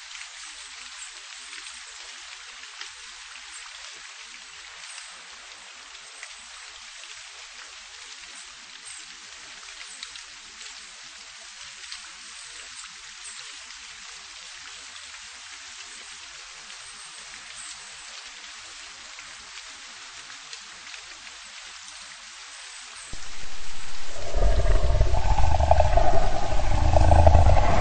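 Steady rain hiss with scattered drop patter. About four seconds before the end, a much louder sound cuts in abruptly and holds, with a strong deep low end.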